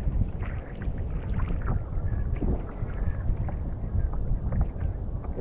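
Wind buffeting the microphone on a drifting sea kayak: a steady low rumble with small scattered knocks and splashes against the hull.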